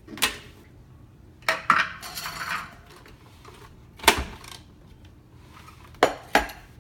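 A utensil clinking and knocking against a kitchen bowl or container, about six separate sharp clinks with a brief scrape between them, as a spoon is used on a freshly blended batch of hummus.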